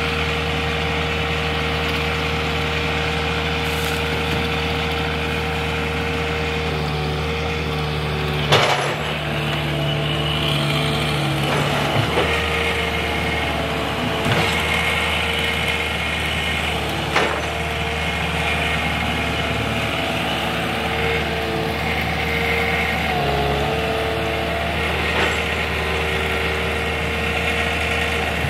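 Heavy land-clearing machine's engine running steadily under load, its pitch shifting now and then as it works. Several sharp cracks or knocks stand out over the engine, the loudest about a third of the way in.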